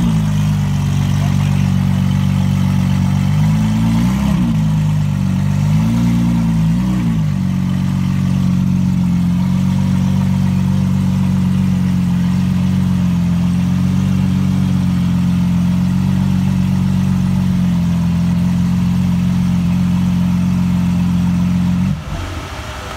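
Lamborghini Aventador SVJ's V12 engine idling, with two short throttle blips about four and six seconds in, then a steady idle that cuts off about a second before the end.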